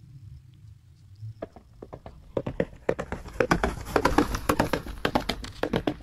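Pencil scratching quickly across paper in rapid sketching strokes, starting about a second and a half in and turning into a dense, busy scratching.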